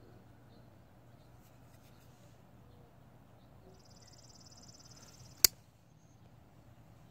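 A bearing-pivot flipper folding knife, the McGinnis Pro Line Valve, flicked open: its CPM-154 blade swings out and locks with one sharp snap about five and a half seconds in.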